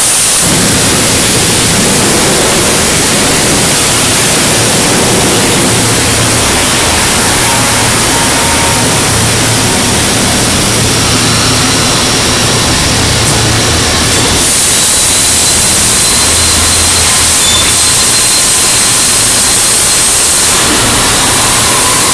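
Loud, steady industrial machinery noise in a steel fabrication shop, with a low hum under it and faint high whistling tones in the second half.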